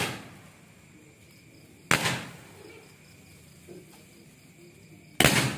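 Homemade firework star cake firing shots: a sharp bang right at the start, another about two seconds in and a third near the end, each dying away within about half a second.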